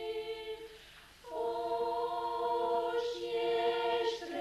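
Background choral music: a choir singing long held chords. The sound drops away for about half a second after the first chord, then a new chord comes in, and near the end it moves to another chord.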